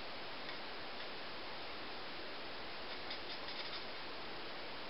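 Faint scratchy strokes of an alcohol marker's tip colouring on cardstock, clearest about three seconds in, over a steady hiss.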